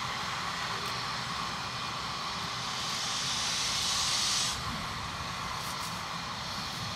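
Steam hissing from the 4-8-0 steam locomotive T251, with a louder hiss swelling about three seconds in and cutting off suddenly a second and a half later.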